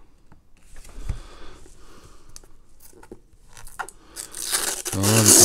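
Protective plastic film being picked at and peeled off a jump starter power bank: faint scratching and handling at first, then a loud tearing hiss that swells over the last second.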